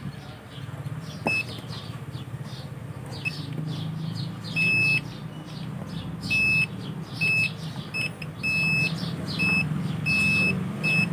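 Continuity buzzer of a Kersonic DT830D digital multimeter beeping as its probes are touched across the legs of a new power transistor under test. It gives one short beep about a second in, then frequent high beeps of uneven length from about four and a half seconds on.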